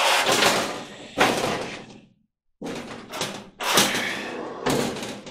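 Sheet-metal top panel of a White Westinghouse clothes dryer being lifted open and handled, giving a series of metal clunks and rattles, the sharpest about a second in and more a few seconds later.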